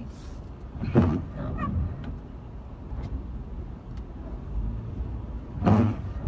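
Car windshield wiper dragging across the wet glass, giving two short pitched squeals, about a second in and near the end, over the low rumble of the car driving slowly.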